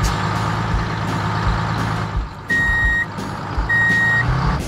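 A heavy vehicle's engine running steadily, with a reversing alarm beeping twice in the second half, each beep about half a second long.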